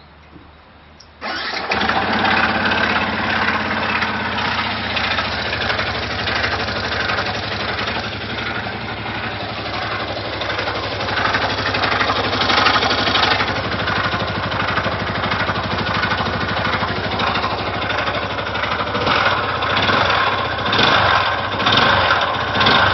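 Yamaha YZF-R125's single-cylinder engine starting about a second in, then running at idle with a weird noise that the owner takes for an engine problem. The loudness swells and falls a few times near the end.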